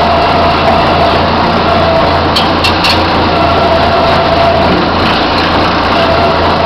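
Hanomag 22C wheel loader's diesel engine running steadily while its loader arms lift a round hay bale, with a steady whine over the low engine hum and a few short squeaks about two and a half seconds in.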